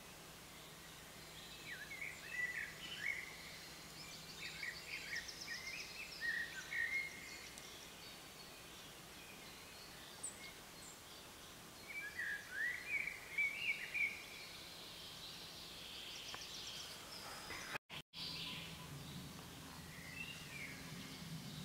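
Woodland songbirds singing: warbled song phrases of a second or two with pauses between them, and fainter high twittering. The sound drops out for a moment near the end.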